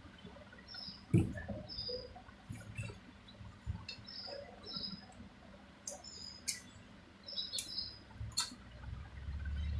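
Small birds chirping in short high calls, with scattered sharp clicks and a few light knocks.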